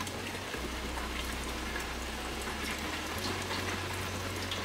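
Tap water running in a steady stream into a stainless steel sink and splashing over cupped hands as they rinse soap-nut rice, with small scattered drips and splashes.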